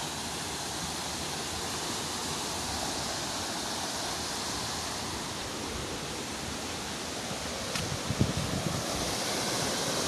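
A swift mountain stream rushing over boulders: a steady hiss of fast water. A few soft knocks about eight seconds in.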